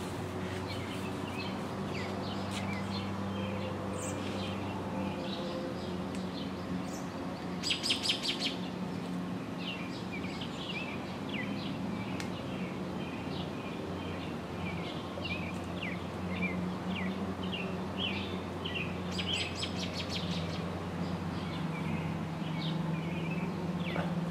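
Wild birds chirping and calling throughout, with a quick rattling series of notes about a third of the way in and again near the end, over a steady low hum.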